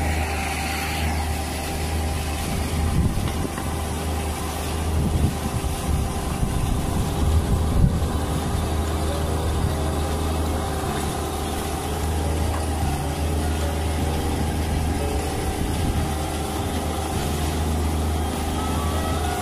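Branson 2505H compact tractor's diesel engine running steadily while its BH95 backhoe digs out a tree stump. A few seconds in there is a stretch of uneven louder noise as the bucket works through the soil and roots.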